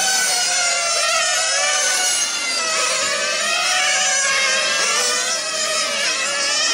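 Several 1/8-scale nitro RC on-road race cars with small glow engines running at high revs. Their high-pitched whines overlap and keep rising and falling as the cars accelerate and brake around the track.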